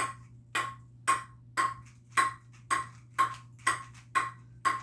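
Ping pong ball bouncing on a table tennis paddle in a steady rhythm, about two bounces a second, each a sharp ringing tock.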